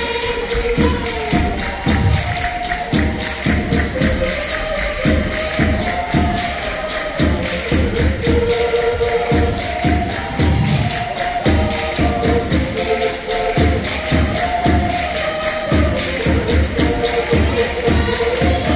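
Live Portuguese folk dance music: a fast, even percussion beat with a melody line running over it, and low thuds throughout.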